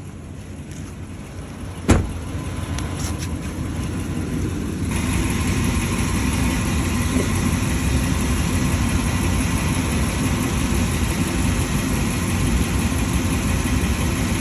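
Toyota Land Cruiser engine idling steadily, kept running to hold the A750F automatic transmission fluid at its 115 °F check temperature. A single sharp metallic knock comes about two seconds in, and about five seconds in the sound becomes louder and fuller.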